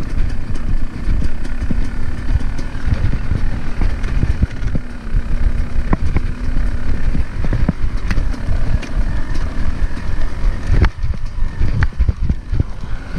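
Dirt bike engine running as the bike is ridden over rough, grassy ground, under heavy wind rumble on the microphone, with scattered knocks from the bumps.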